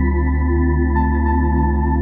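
Slow relaxation music: a held keyboard chord over a steady deep bass note, with a higher note coming in about halfway through.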